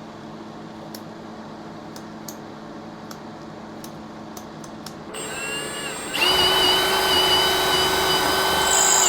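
Milwaukee 2804-20 18V 1/2-inch cordless hammer drill run with no load, after a few faint clicks. The motor spins up softly about five seconds in, then runs louder at a steady high speed with a whine from about six seconds.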